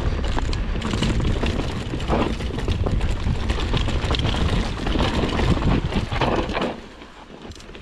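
Mountain bike descending a rocky dirt trail: wind rushing over the camera microphone, with the tyres crunching over dirt and stones and many short clicks and rattles from the bike. It drops quieter near the end.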